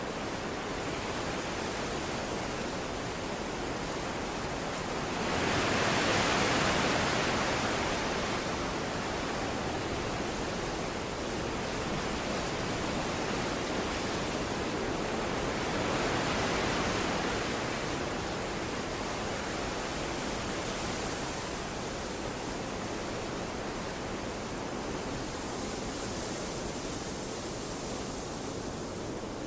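Steady rushing of surf, swelling as waves wash in about five seconds in and again about halfway through.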